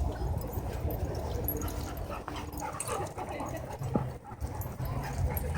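Dog whining and giving short yips over a steady low rumble.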